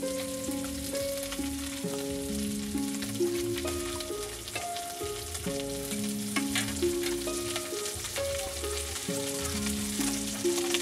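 Background instrumental music with a slow melody of held notes, over a steady hiss with light splashing as cut vegetable pieces are washed by hand in a pot of water.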